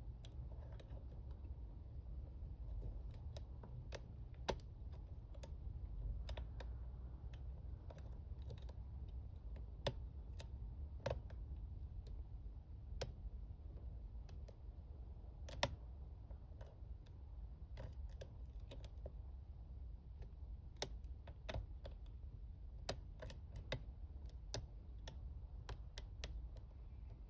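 A steel lock-pick hook working the pin stack of a small padlock under a pry-bar tension tool: small sharp clicks and taps at irregular intervals, some louder than others, over a low steady hum.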